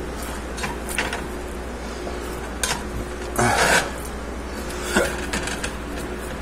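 A spatula scraping and pressing raw ground beef against a metal pot, a few short scrapes and clicks with one longer, louder rasp about halfway through, over a steady low hum.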